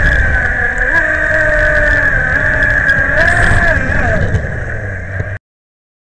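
Speedboat motor running at speed, heard from on board: a steady high whine over a rumble of water and hull noise, with lower tones rising and falling as the revs shift. The sound cuts off suddenly a little after five seconds in.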